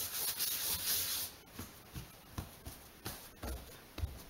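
Hands rubbing and pressing a sheet of bread dough on a floured wooden board: a soft swishing rub for about the first second, then a few light taps and thumps.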